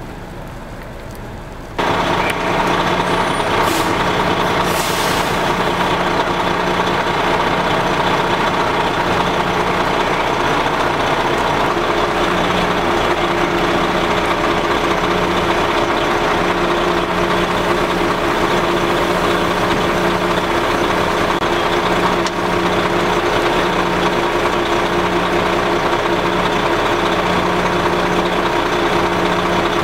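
A heavy truck's diesel engine running steadily, starting abruptly about two seconds in, with a low hum cutting in and out in its second half.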